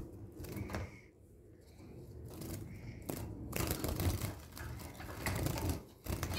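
A pet finch's wings fluttering and a thin wire birdcage rattling as a hand reaches in after the bird. The sound is a run of quick, irregular clicks and rustles, getting busier in the second half.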